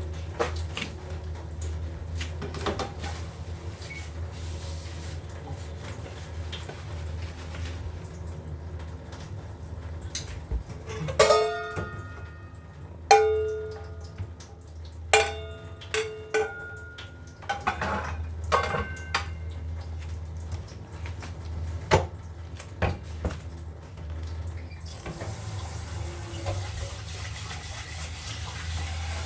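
Kitchen work: dishes, pots and utensils knocking and clinking over a steady low hum, with a run of ringing clinks in the middle. Water runs from the tap near the end.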